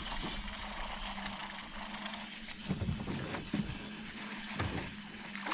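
Steady hum of a boat's motor over wind and water noise, with a few soft knocks in the middle.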